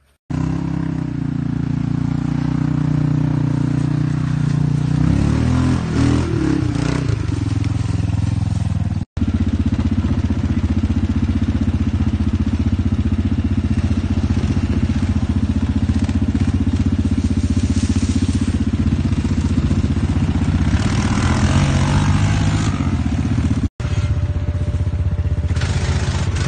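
ATV engines running steadily as the four-wheelers are ridden through mud. The sound breaks off abruptly for a moment twice.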